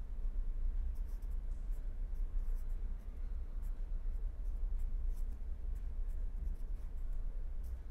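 Marker pen writing on paper: a string of short, irregular scratchy strokes as an equation is written out, over a steady low hum.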